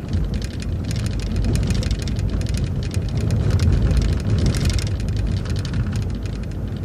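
City transit bus driving, heard from inside: a steady low engine and road rumble with dense rattling and ticking over it, which grows busier midway.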